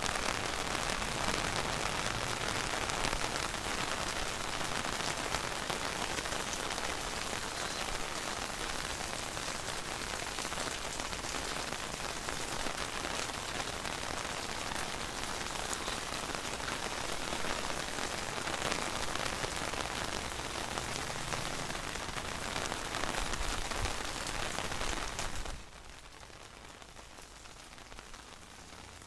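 Heavy rain falling and pattering steadily on surfaces. About three-quarters of the way through it drops abruptly to a much quieter, thinner rain.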